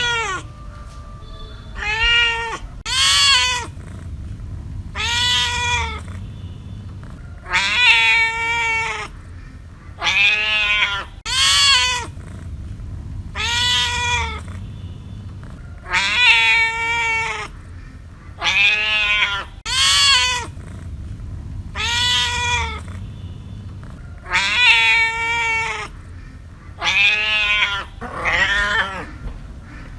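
A cat meowing over and over, about sixteen separate meows each rising and falling in pitch, one every second or two, over a faint steady low hum.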